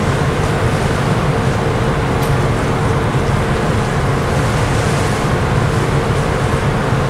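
Steady rumble of a cruise ship under way, its engines and propeller wash churning the water, with a constant low hum and a fainter higher tone running in it.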